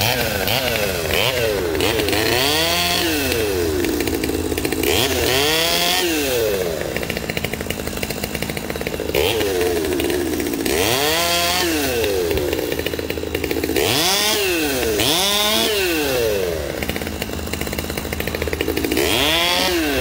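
Two-stroke gas chainsaw running. It is revved up and let fall back to a lower speed about half a dozen times.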